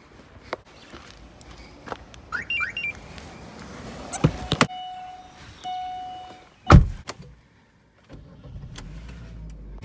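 Getting into a car: clicks and short rising electronic chirps, the door latch clicking, a steady electronic chime tone sounding twice, then the car door shutting with a heavy thump, the loudest sound, about seven seconds in.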